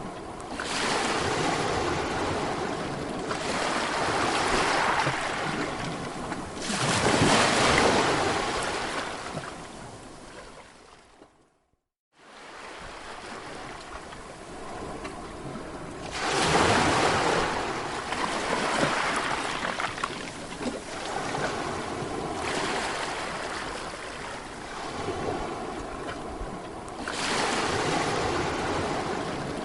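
Sea waves breaking and washing in, swelling and ebbing every few seconds. The sound dips briefly to silence about eleven seconds in and then fades back up.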